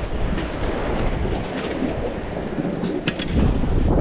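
Wind buffeting the microphone outdoors, a rough, uneven rumble, with a few light clicks about three seconds in.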